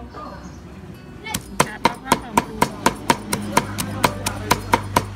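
Cleaver chopping red chilies on a wooden chopping block, about a second in settling into quick, even strokes at roughly four a second, each a sharp knock.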